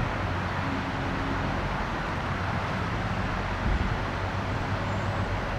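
Steady, even hum of distant road traffic.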